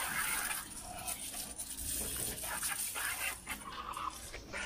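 Water from a hose nozzle spraying and spattering against a motorcycle's rear wheel and underside, washing off mud.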